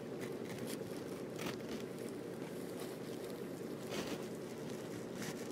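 Brief scuffs and rustles of a kitten wriggling under a hand on a woven rug, a few of them sharper, over a steady low hum.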